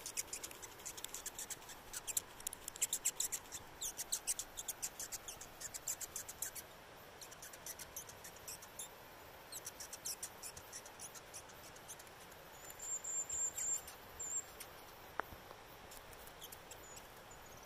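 A New Zealand fantail calling in rapid, sharp, high-pitched chips, answering the clicking of a bow release aid. The chips come in quick runs, thin out about seven seconds in, pick up again, and give way to a few thin high notes about thirteen seconds in.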